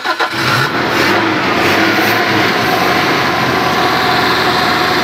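Daihatsu Espass 1.6's four-cylinder petrol engine being cranked by its starter motor, turning over steadily without catching, in an attempt to start the stalled van.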